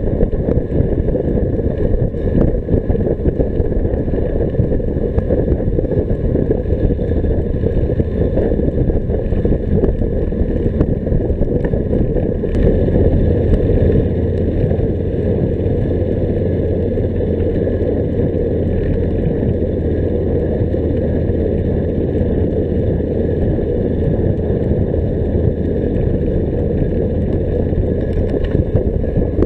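Wind rumbling on the microphone of a bicycle-mounted camera at riding speed, with road noise from the tyres. A steady low hum joins about twelve seconds in and fades near the end.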